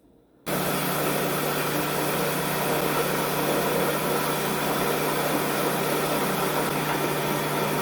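Electric blender switched on about half a second in, its motor running steadily at full speed with a constant hum while it blends tomatoes.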